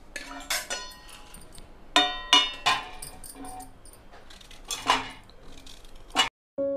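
Pieces of raw green mango, cut off with a knife, dropping onto a stainless steel plate, each landing with a short metallic clink that rings briefly, several times over.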